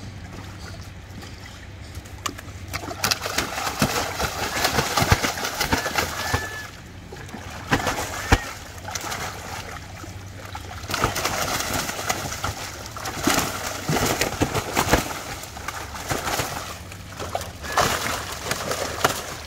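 Large live fish thrashing in a shallow water-filled tarp tank, splashing and slapping the water in repeated bouts of a few seconds each after a quieter start.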